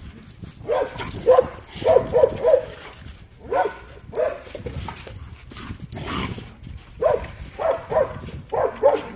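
A dog barking in play: short, quick barks in clusters of two to four, repeated several times.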